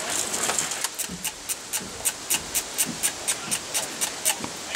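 Airsoft gunfire: an even run of sharp clicks, about four or five a second, over the rustle of gear and clothing as the player moves.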